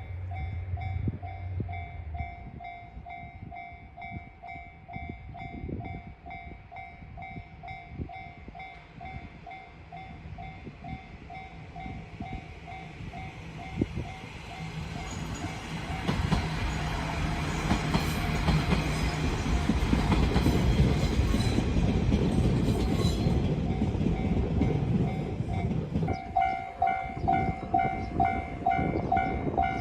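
Japanese railroad crossing alarm ringing its repeating electronic "kan-kan" tone while a train passes through. The train's running noise builds about halfway in and is loudest for several seconds, nearly covering the alarm. Near the end the alarm rings out clearly again.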